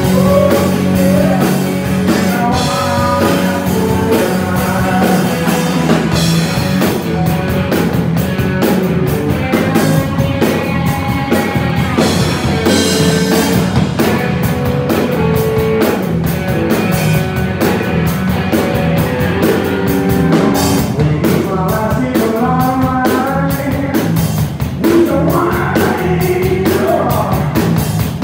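A live rock band playing loud: drum kit, electric bass and electric guitar.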